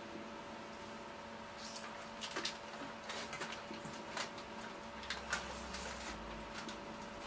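Scattered light clicks and taps of kitchen utensils and food being handled during cooking, over a steady hum.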